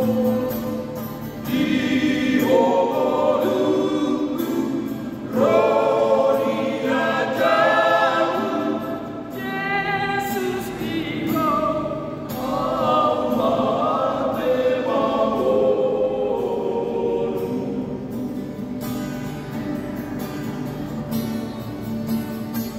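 Male vocal group of six singing a Batak-language hymn in harmony, accompanied by a strummed acoustic guitar.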